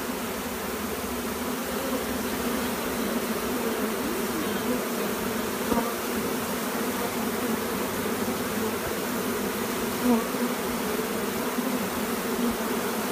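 Steady, dense buzzing of a large honey bee swarm as the bees march into a hive box, with a few brief louder buzzes along the way.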